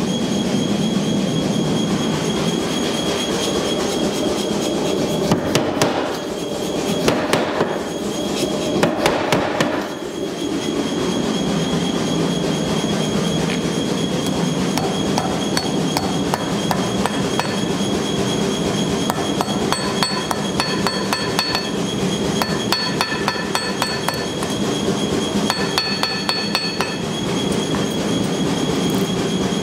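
Forging a hot steel knife blank: rapid, repeated hammer blows on the anvil, with the anvil ringing between about 20 and 27 seconds, over a steady fast pounding from a running power hammer.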